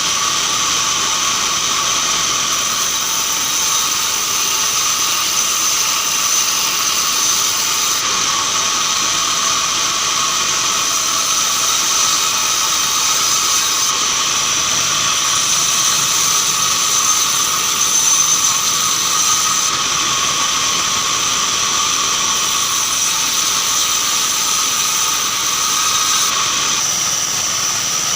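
Band sawmill running steadily through keranji hardwood: an even, loud saw noise with a steady high whine that does not let up.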